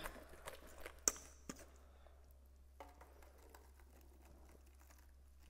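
A spatula scraping and clinking against a stainless steel mixing bowl while batter is poured out, with a few light clinks, the sharpest about a second in with a short metallic ring.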